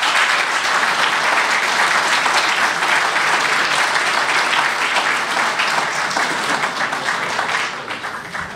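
Audience applauding, a dense steady clapping that thins out near the end.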